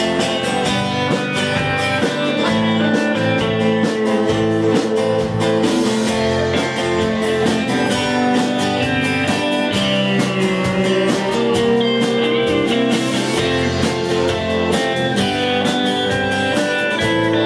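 Live band playing: strummed acoustic guitar and electric guitar over keyboard and drums, with a steady beat.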